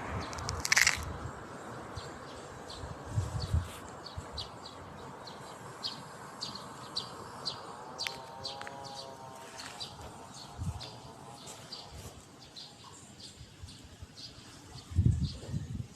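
A steady series of short, high chirps, about two to three a second, from a small animal outdoors. A sharp click comes just under a second in, and a few low thumps break in now and then, the loudest near the end.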